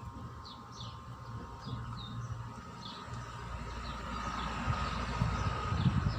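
Small birds chirping in short, quick downward chirps, with a low rumble underneath that grows louder toward the end.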